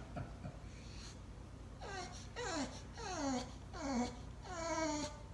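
English bulldog whining in a run of about five short calls that each fall in pitch, starting about two seconds in. He is whining to get at his rope toy, which is shut inside a plastic storage bin.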